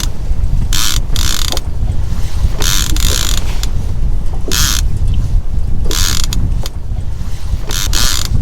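A fishing reel being cranked in short rasping spurts, one every second or two, over a steady low rumble from the boat and wind.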